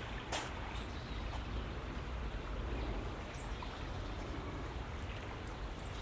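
River flowing steadily, with a low rumble underneath. A single sharp click comes about a third of a second in, and a few faint, brief high bird chirps come and go.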